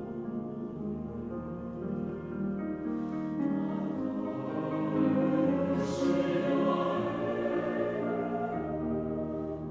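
Mixed chorus singing a slow, sustained passage with piano, swelling to a louder peak about halfway through and easing off near the end.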